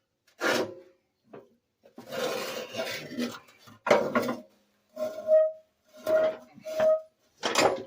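Steel clanking and scraping: a homemade wrench and cheater bar working on a mower blade bolt to break it loose. There is a rough scrape, then a series of ringing metal clanks, about one a second.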